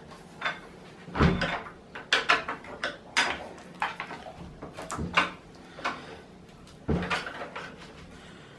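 Irregular clicks, taps and knocks of door-handle and lock parts being handled and fitted into a wooden door, with a heavier thump about a second in.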